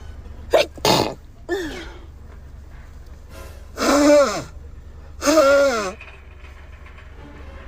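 A woman sneezing repeatedly in an allergy sneezing fit. There are two quick, sharp sneezes within the first second, then two longer, loud sneezes with a drawn-out voiced sound at about four and five and a half seconds in.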